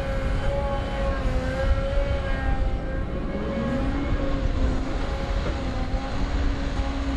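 Cat 320F hydraulic excavator's diesel engine running under digging load, with a steady whine over it. About four seconds in, a lower tone rises in pitch.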